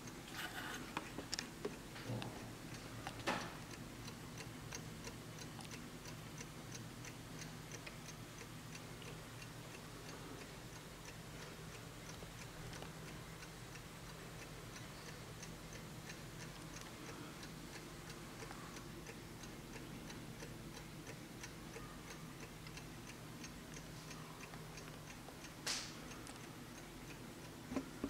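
Warmink (Wuba) mechanical mantel clock ticking steadily, with evenly spaced, even beats. A few louder knocks come near the start and once near the end.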